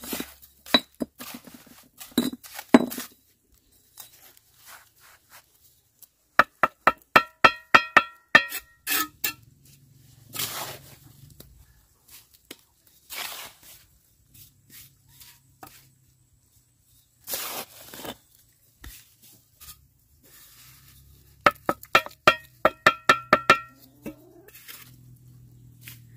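Bricklaying: a steel trowel tapping and knocking bricks, two quick runs of about ten ringing strikes each at roughly four a second, with short scraping sounds in between.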